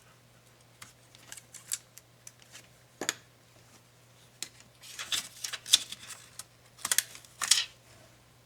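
Small hard plastic and metal clicks, taps and scrapes of laptop parts and tools being handled, with a fuller knock about three seconds in and denser bursts of clicking and scraping near the middle and near the end.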